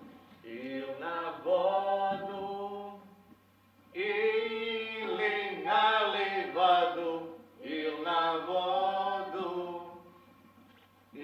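Unaccompanied singing in three drawn-out phrases, each a few seconds long with a short pause between them.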